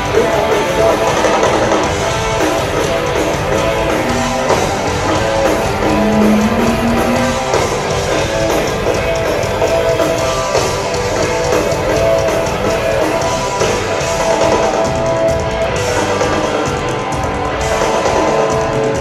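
Live punk rock band playing with distorted electric guitars, bass and drums, at a steady loud level, on an audience bootleg recording.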